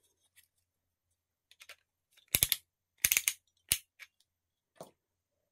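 3D-printed PLA plastic parts clicking and clacking against each other as a wing piece is fitted to a toy robot's body: a few faint ticks, then sharp clicks in quick clusters from about two seconds in, and a couple of softer single clicks near the end.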